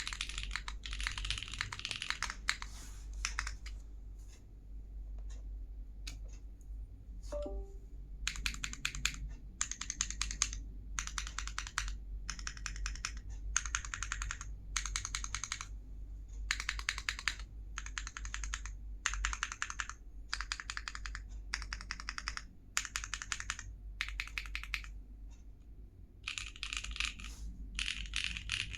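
Typing on a plateless, gasket-mounted ARC60 mechanical keyboard with Gateron Cream Soda linear switches and GMK keycaps. The keystrokes come as a run of typing, a pause of a few seconds, then repeated quick bursts of keystrokes under a second long with short gaps between them.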